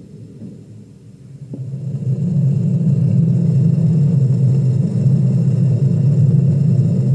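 MiniBox ghost-box app output playing through a speaker: a low rumbling noise that swells up about a second and a half in and then holds loud, with faint steady high tones above it.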